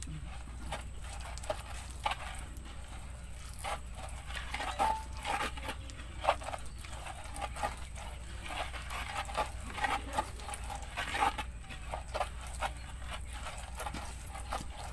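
A pestle grinding and stirring thick petis sauce in a wide clay mortar (cobek): irregular scrapes and knocks of the pestle against the mortar, several a second.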